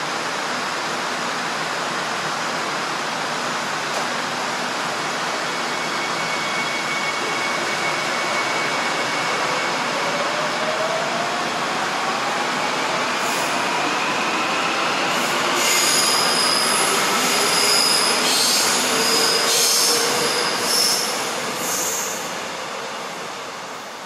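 Subway train pulling away: a steady rumble with the motor whine rising in pitch, then several seconds of high-pitched steel wheel squeal, before the noise falls away near the end.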